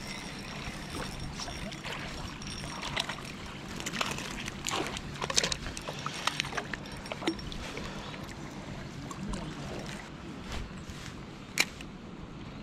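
Water splashing and sloshing in a run of short bursts over a few seconds, then a single sharp click near the end, over a steady background hiss.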